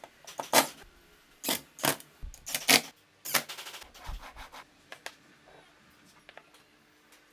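About six short scraping or rubbing strokes in quick succession, followed by a few faint ticks.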